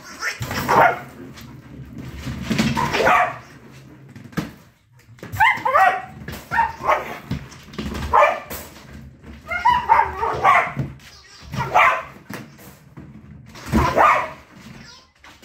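A dog barking in repeated short outbursts every second or two, excited play barking while it chases a ball.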